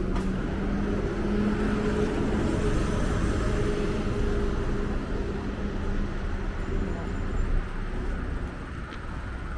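Steady low mechanical hum from a running vehicle engine, with faint voices in the background.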